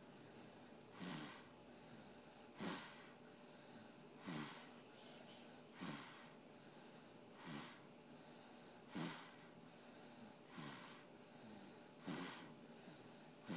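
Snoring: a short snore about every one and a half seconds, each falling in pitch, with a softer breath between each pair.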